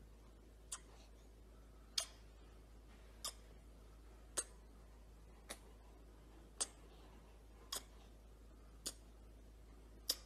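Faint, sharp clicks repeating evenly about once a second over near silence.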